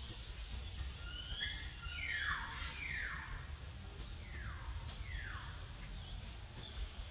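Young macaque screaming while another young monkey bites it in a rough play fight: a run of sharp, falling squeals, about four clear ones, the loudest a couple of seconds in, with shorter higher cries just before them.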